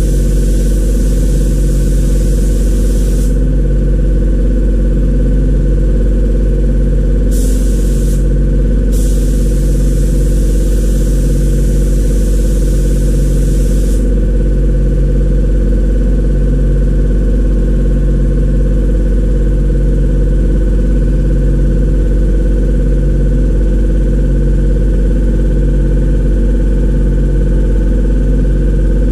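Compressed-air spray gun hissing in bursts as it sprays: a long burst at the start, a short one about seven seconds in, and a longer one that stops about fourteen seconds in. Under it is a loud, steady, low machine drone with a slow regular pulse.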